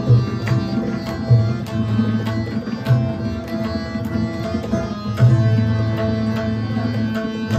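Instrumental ghazal accompaniment: tabla playing a steady rhythm of sharp strikes with deep resonant bass strokes, under long held keyboard notes.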